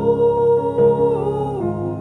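Background music: a song's melody line, held notes that slide down in pitch twice, over a steady low accompaniment.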